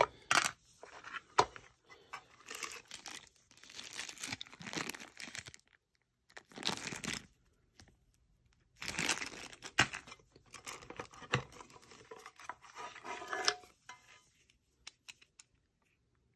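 Packaging being handled: a clear plastic zip bag crinkling and rustling in irregular bursts, with cardboard sliding and small knocks of parts. It thins out to a few faint clicks near the end.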